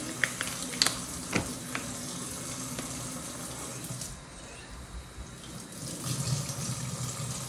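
Water running steadily from a tap during hair washing, with a few light clicks in the first second and a half and a slight drop in level around the middle.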